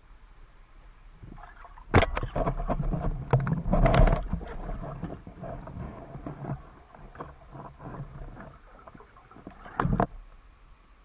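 Underwater knocks, clicks and scraping picked up through a camera housing as a speargun-carrying diver moves among sunken branches. A sharp loud knock comes about two seconds in, followed by a couple of seconds of rushing noise, then scattered clicks, and another sharp knock near the end.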